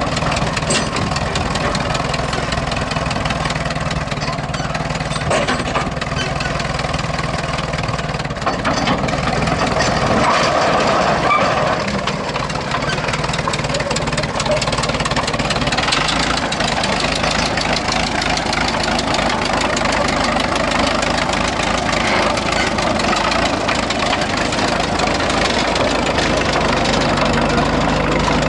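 Caterpillar Twenty crawler tractor's engine running steadily as the tractor drives down off a trailer and across dirt, louder for a couple of seconds about ten seconds in.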